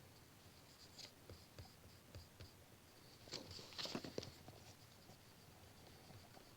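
Pencil scratching on paper in short, faint strokes, with a denser, louder run of strokes about halfway through.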